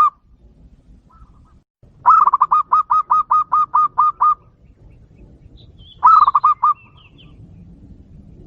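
Zebra dove (local perkutut) cooing: a rapid, even run of about eleven short coos about two seconds in, and a shorter run of about five coos about six seconds in.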